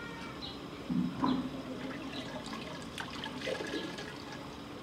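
Water splashing and trickling in a small plastic container as a hand dips into it, with a short, louder low sound about a second in.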